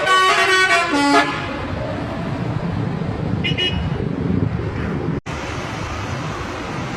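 A bus's multi-tone 'telolet' horn playing a short tune of changing notes, stopping about a second in. After it comes a steady low engine and road rumble, with a brief high toot around three and a half seconds in and a momentary dropout just after five seconds.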